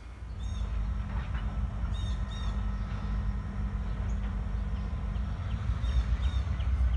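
Outdoor ambience: a steady, low rumble and a bird's short, high chirps, several of them in pairs. A faint hum under it stops about five seconds in.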